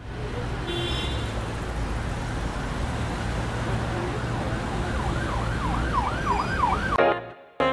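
Steady low rumble of a car on the move, with an emergency vehicle's siren yelping from about five seconds in, its pitch rising and falling about three times a second. Near the end it cuts off abruptly and saxophone music begins.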